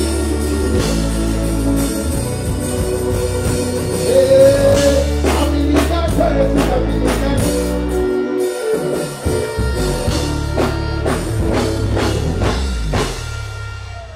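Live band music with steady deep bass notes and regular drum hits under a melodic line; the level drops off near the end.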